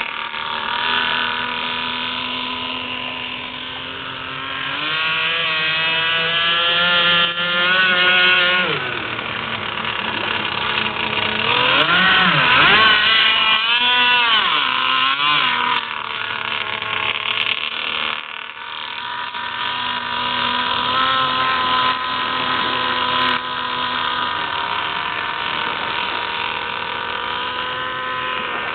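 RCMK inline-twin engine of a 65-inch GTX radio-controlled boat running at speed on the water, its pitch rising and falling with the throttle. About halfway through the boat passes close and the engine note swoops up and down and is loudest.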